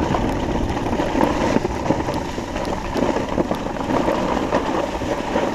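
Skis hissing and scraping over the snow on a downhill run, with wind rumbling on the microphone.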